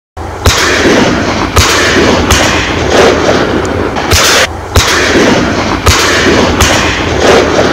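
A series of shotgun shots at duck hunting, about ten in seven seconds at uneven gaps of roughly a second, over a loud continuous rushing noise.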